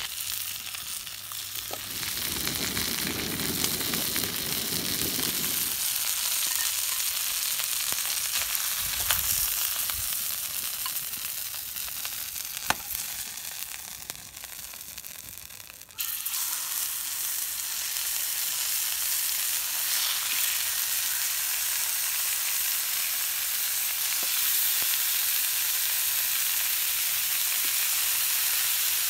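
Chicken drumsticks sizzling as they fry in a pan, a steady crackling hiss with a few sharp clicks. It dips a little, then jumps back up suddenly about halfway through.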